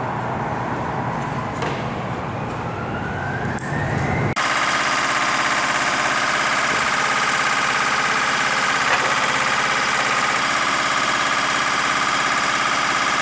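Machinery hum with a rising whine, then about four seconds in a sudden change to a loud, steady high-pitched turbine whine and rush, typical of jet engines running on an airfield flight line.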